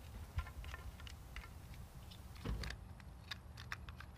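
Faint plastic clicks and taps as a clip-on chain-cleaner tool filled with degreaser is handled and fitted around a bicycle chain, with one duller knock about two and a half seconds in.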